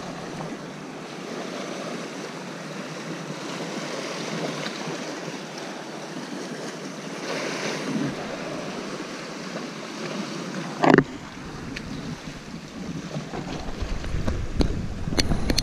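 Sea surging and washing through a rocky gully, with wind on the microphone. A single sharp knock about eleven seconds in is the loudest sound, and a deeper wind rumble builds after it.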